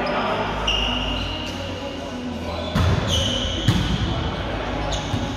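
Indoor volleyball rally: about four sharp slaps of hands and arms on the ball, with high sneaker squeaks on the court floor and players' voices in the gym.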